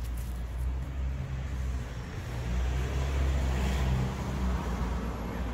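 Road traffic: a passing vehicle's engine hum and tyre noise, swelling about three to four seconds in and easing off near the end.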